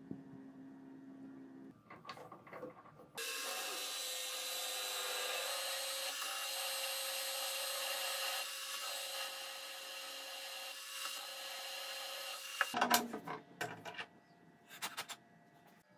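Twist drill in a mill-drill spindle boring through a knurled metal block, a steady cutting whine that starts about three seconds in and cuts off about four seconds before the end. A few clanks of metal being handled follow.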